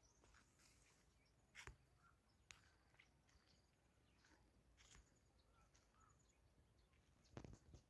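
Near silence: faint open-field ambience with scattered faint bird chirps, and a couple of soft knocks, about 1.5 seconds in and near the end.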